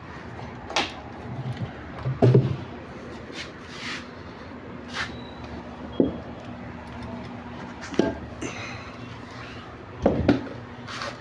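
Irregular knocks and clicks of metal parts and tools being handled while a washing machine is taken apart, a dozen or so separate strikes over a low steady hum.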